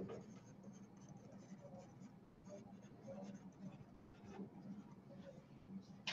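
Faint scratching of a stylus writing by hand, in short irregular strokes, over a low steady hum.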